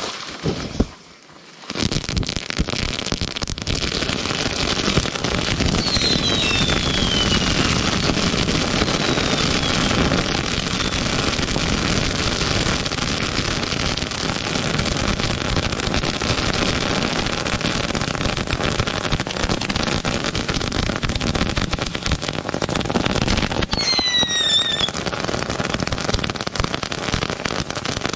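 Fireworks going off on the ground in a sustained barrage: after a sharp bang about a second in, a dense, continuous crackling and popping sets in about two seconds in and runs on. Falling whistles cut through it twice, about a fifth of the way in and again near the end.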